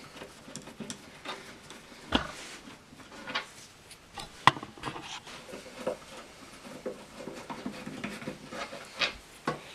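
Hand screwdriver turning screws out of a combo amp cabinet's particle-board panel: small scattered clicks, scrapes and rubbing, with a sharper click about four and a half seconds in.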